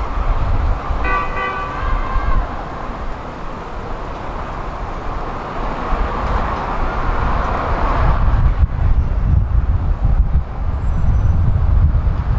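Steady traffic rumble with a short horn toot about a second in. The low rumble grows louder in the second half as vehicles pass.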